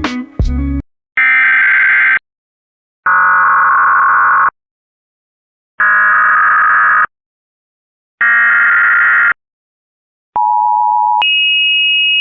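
Emergency Alert System tones: four short bursts of warbling digital header data, each about a second long with silent gaps between them. Then the two-tone attention signal starts low and jumps sharply higher in pitch after about a second, holding steady.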